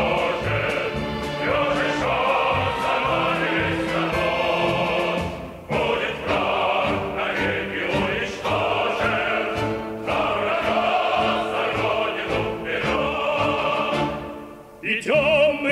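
Background music: a Russian patriotic march song for choir and orchestra, here in a passage between its sung verses. There are two short breaks, about six seconds in and shortly before the end.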